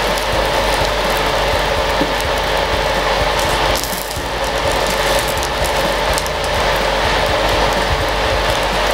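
Breaded chicken breast sizzling and crackling in hot oil in a frying pan, a steady dense sizzle with fine pops throughout, a little quieter after a cut about four seconds in.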